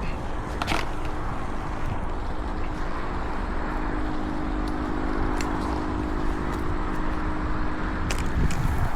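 An engine running steadily with an even hum, with a few sharp clicks and knocks over it; the hum fades out near the end.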